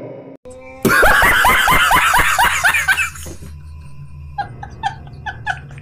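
A burst of loud, rapid ha-ha-ha laughter starts about a second in and lasts a couple of seconds. It is followed by quieter, short, rhythmic snickering in the second half, over a faint low hum.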